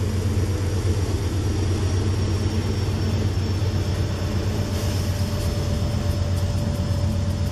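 Several diesel-electric freight locomotives rolling slowly past, their engines running with a steady low hum.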